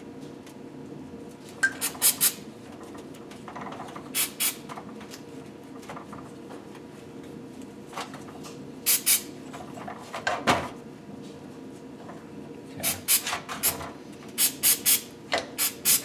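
Short, squeaky scraping strokes in quick clusters: a pick working carbon crud out of a piston's ring grooves. A faint steady hum runs under it.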